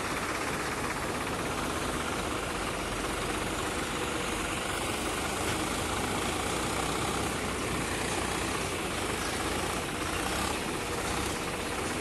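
Farm tractor's diesel engine running steadily while it powers the hydraulic lift of its tipping trailer, raising the loaded bed to dump soil.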